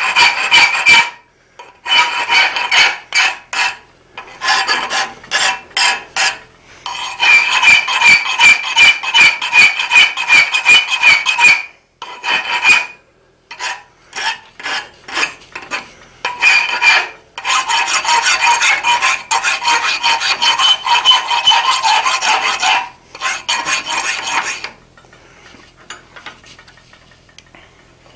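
Steel hand file rasping back and forth across a forged iron cabinet handle, smoothing it. The strokes come in quick runs of a few seconds with short pauses and stop a few seconds before the end.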